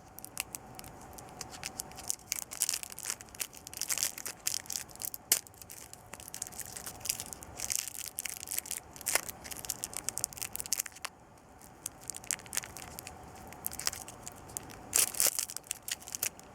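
Plastic lollipop wrapper being handled, crinkling and crackling in irregular bursts, with a brief lull about two-thirds through and a louder bout of crinkling near the end.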